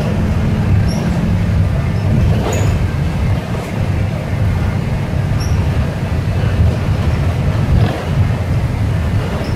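City bus running on a wet road, heard from inside the cabin: a steady low engine and road rumble, with a few brief knocks or rattles.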